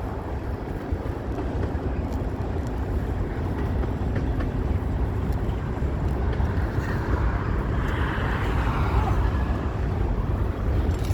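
Steady low rumble of wind buffeting the microphone, with a hissing swell from about six to ten seconds in.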